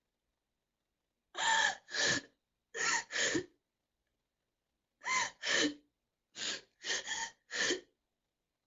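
A girl sobbing in short, gasping catches of breath: about ten brief sobs with a wavering pitch, in groups of four, two and four separated by short silences.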